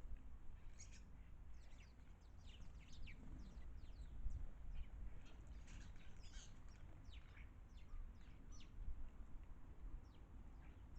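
Small garden birds chirping, many short high notes that sweep downward and come in quick scattered runs, over a faint steady low rumble of background noise.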